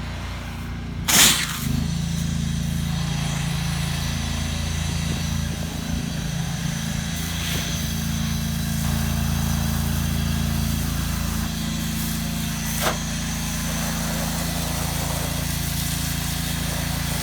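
Soft wash system's engine-driven pump running at a steady drone while low-pressure spray is applied, with a sharp burst of noise about a second in and a short click later.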